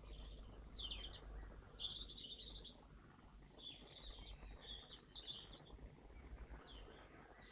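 Faint high chirps and short calls of small garden songbirds, in several brief clusters, over a low steady background rumble.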